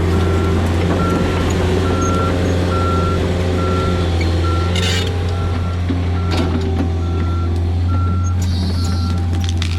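Excavator's diesel engine running steadily while its travel alarm beeps about one and a half times a second. A brief hissing or crackling burst comes about halfway through.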